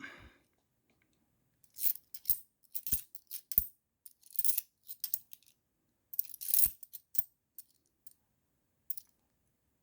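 50p coins clinking and jingling as they are handled and sorted, in several short bursts with quiet gaps between.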